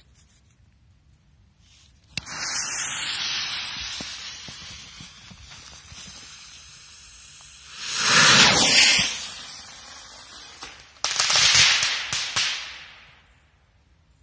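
A firework rocket launching: a sudden loud hiss about two seconds in that fades over several seconds as it climbs. A louder rushing surge follows about eight seconds in, then another sharp burst about eleven seconds in that dies away within two seconds.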